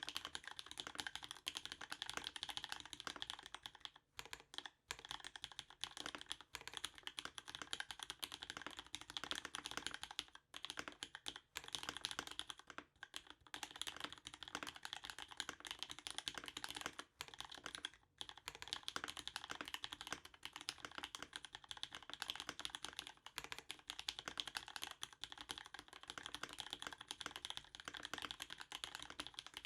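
Steady, fast typing on a MEME 65% gasket-mount custom mechanical keyboard with an aluminum plate, lubed vintage Cherry MX Black linear switches on 67 g springs, and GMK Carbon keycaps. The typing stops for short moments now and then.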